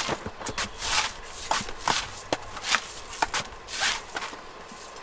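Green husk of a young coconut being shaved against a fixed upright blade: about five short scraping cuts roughly a second apart, with sharp clicks and knocks between them.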